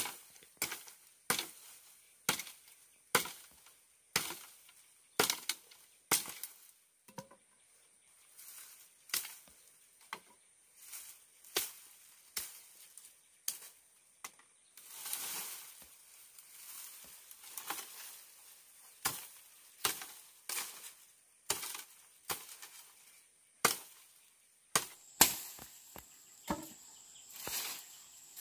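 Machete chopping dry branches: a string of sharp blade strikes, roughly one a second, quickening to several in quick succession near the end, with brush rustling as branches are handled about halfway through.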